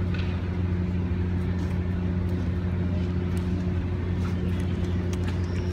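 A steady low mechanical hum that holds one unchanging pitch, with faint scattered clicks and ambient noise.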